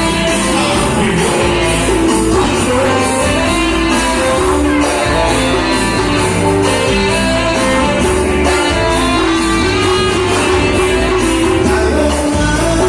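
A dance band playing, with a singer over guitar and a steady beat.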